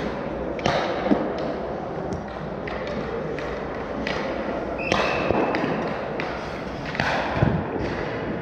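Ice hockey play in an arena: scattered sharp knocks and thuds of sticks, puck and boards over a steady haze of rink noise, echoing in the large hall.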